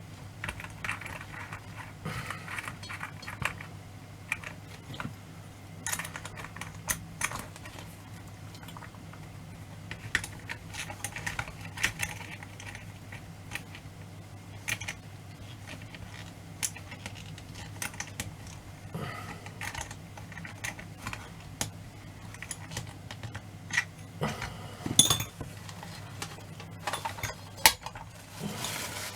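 Small metal parts of a Kaiser torsion clock and hand tools being handled during reassembly: irregular light clicks and clinks, with a steady low hum underneath.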